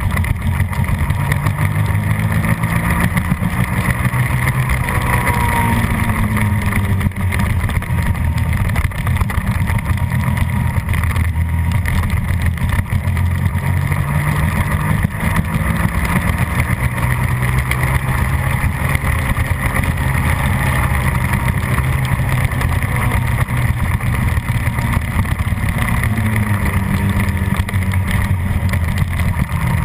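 Suzuki SV650's 90-degree V-twin engine running hard at racing speed, revs climbing and dropping several times through the gears and corners.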